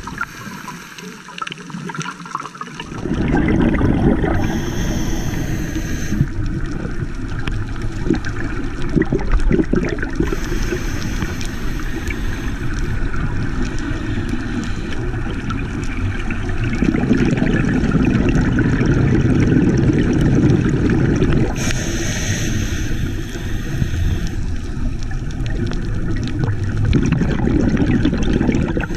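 Underwater sound heard through a GoPro housing during a scuba dive: a steady low rush of water, with a diver's exhaled bubbles bubbling up in bursts three times.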